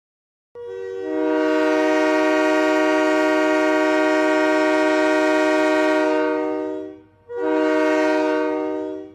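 Train horn sounding a chord of several notes: one long blast of about six seconds, then a shorter blast of about two seconds after a brief break.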